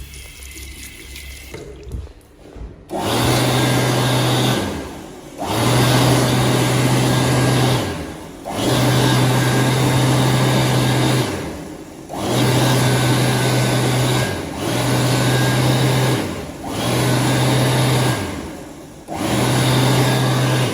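A 2000 JD MacDonald Autobeam automatic hand dryer blowing: a rush of air over a steady low motor hum. It starts about three seconds in and cuts off and restarts seven times in quick succession. Its motor is called bad.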